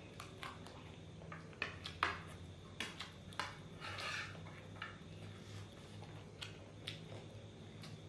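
A spoon clinking and scraping against a frying pan, with soft chewing of fried rice between scoops, as a string of separate small clicks. A faint steady low hum runs underneath.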